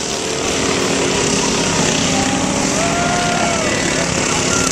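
Several racing riding lawn mowers' small engines running hard as the mowers race past, with one engine note rising and then falling about halfway through.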